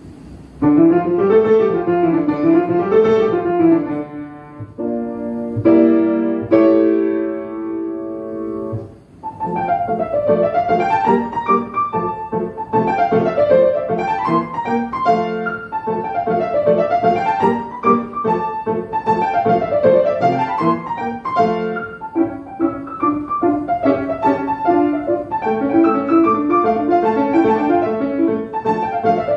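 Grand piano played solo: a lively classical piece of quick, repeating note figures, broken by a stretch of held chords about five to nine seconds in.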